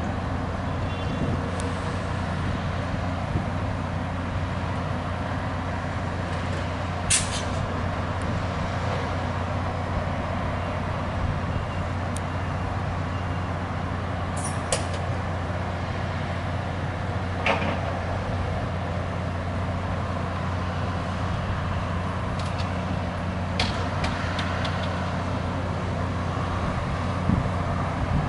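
Diesel engines of a stabled Loram rail grinding train idling with a steady low hum. A few short hisses of air are released from the brake system.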